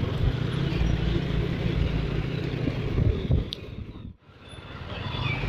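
Steady engine hum with road and wind noise from a vehicle travelling along a road. About four seconds in the sound drops to near silence, then gradually comes back.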